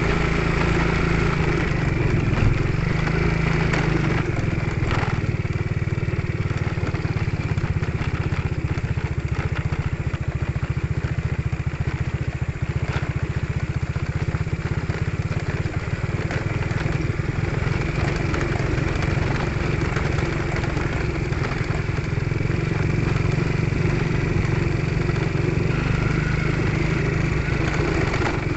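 Vehicle engine running steadily while travelling over a rough, slippery road, with a few faint knocks.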